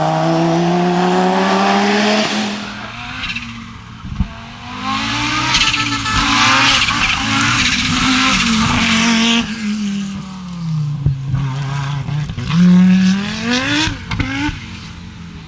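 Audi Sport Quattro S1 E2 Group B rally car's turbocharged five-cylinder engine accelerating hard, then easing off and revving up sharply again near the end. In the middle its tyres skid and rush over the surface.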